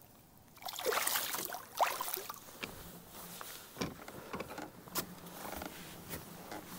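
Water splashing as a bass is let go beside a kayak, then scattered sharp knocks and scrapes on the kayak as the angler shifts about.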